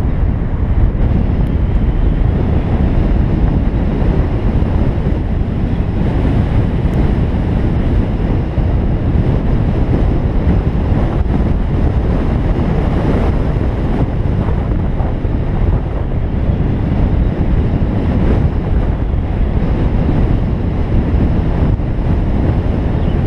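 Steady low wind buffeting and tyre rumble on the microphone of a camera mounted on a moving BMW i3s electric car, with no engine note.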